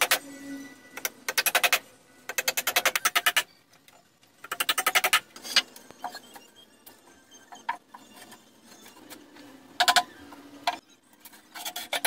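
Cordless drill-driver driving screws into pallet timber in short bursts, each burst a rapid clatter of clicks at about ten a second, repeated about five times.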